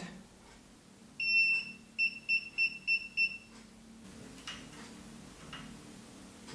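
Xiaomi electric scooter's warning beeper: one longer high-pitched beep, then five short beeps at about three a second. This is the error 15 alarm, raised because the brake lever's magnet is out of line with its sensor. A few faint clicks follow.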